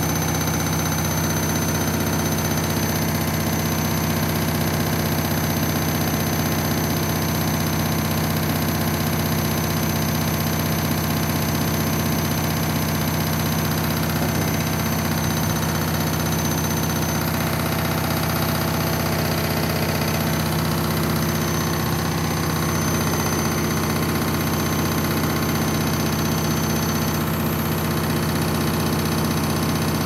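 Candy washing machine in its final spin, the drum and motor turning at a steady speed: an even hum with a thin high whine that neither rises nor falls.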